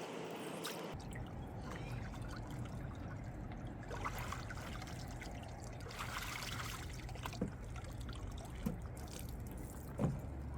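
Water trickling and lapping, with a few faint clicks.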